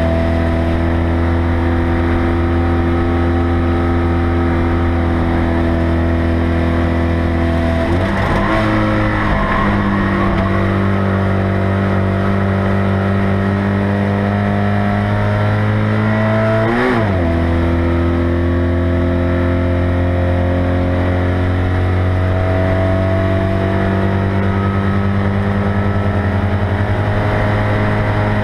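Citroën 2CV race car's air-cooled flat-twin engine running hard under load, heard from inside the cabin. Its note climbs slowly, with two brief dips in pitch about eight and seventeen seconds in.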